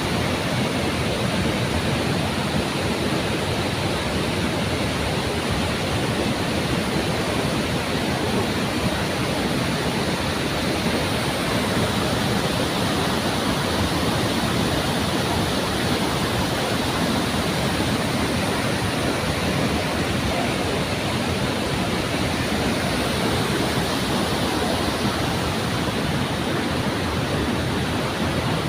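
Waterfall crashing steadily: a loud, even rush of falling water with no let-up.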